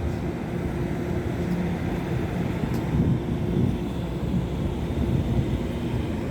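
Diesel train locomotive running, a steady low engine hum.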